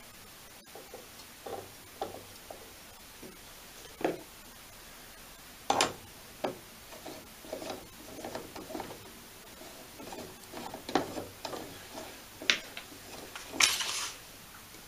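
Hands handling and adjusting a brass microscope: scattered small clicks, knocks and rubs of metal parts being moved. There is a sharp knock about six seconds in and a short rubbing scrape near the end.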